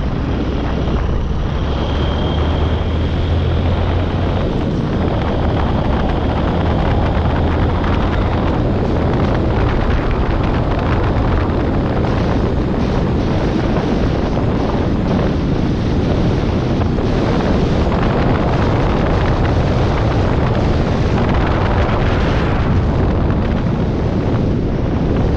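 Wind buffeting the microphone of a moving motorcycle, a loud steady rush, with the motorcycle's engine running low underneath, plainest in the first few seconds.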